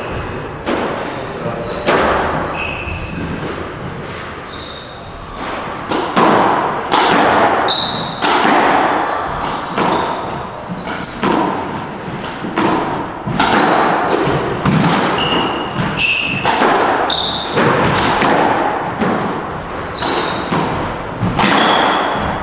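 Squash rally on a hardwood court: the ball cracks off the rackets and the walls about once a second in a large echoing hall, mixed with short squeaks of the players' shoes on the wooden floor.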